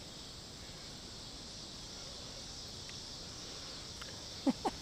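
Steady, high-pitched chorus of insects. Near the end come a couple of short falling vocal sounds.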